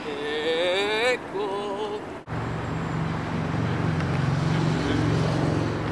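A short rising wordless vocal tone, then, after an abrupt cut, the steady low hum of a motor vehicle engine running.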